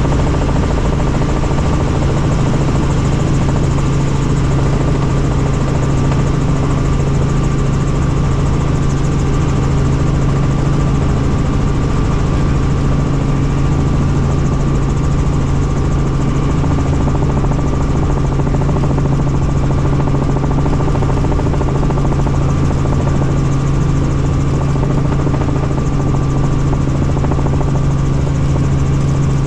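Helicopter in flight: a loud, steady drone with a strong low hum that does not change.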